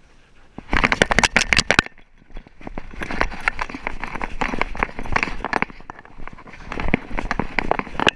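A Schipperke running with a camera strapped to it: a dense, rapid clatter and rattle from its footfalls and the jostling camera mount. It starts about a second in, stops briefly, then carries on steadily.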